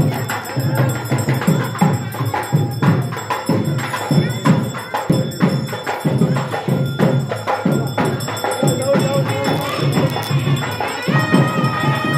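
Drums beaten in a steady, fast rhythm, about three beats a second, with jingling, clattering percussion over them. A held, steady pitched tone joins near the end.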